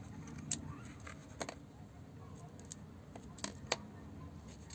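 Four sharp metallic clicks and clinks of pump parts and tools being handled during disassembly, over a low steady hum. The loudest comes about half a second in, and two follow close together near the end.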